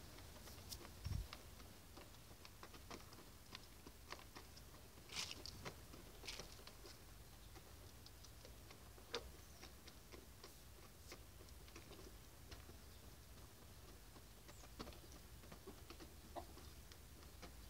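Hens pecking feed off a dirt floor: faint, irregular sharp taps, with a low thump about a second in.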